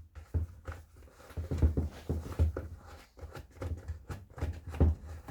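Irregular clicks and knocks of hands taking the air filter cover off a 45cc chainsaw and handling its plastic parts.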